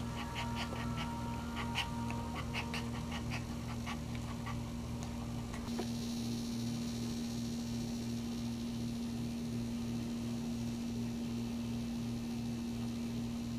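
Maltese in labour whimpering, a run of short high squeaks that die away about halfway through, over a steady low hum.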